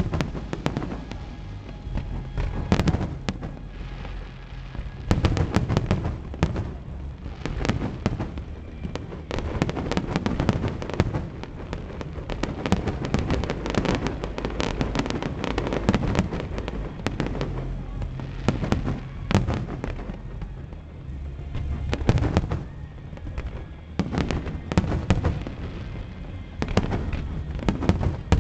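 Aerial fireworks going off in a dense, continuous barrage: many sharp bangs and crackles overlapping with deep booms, without a break.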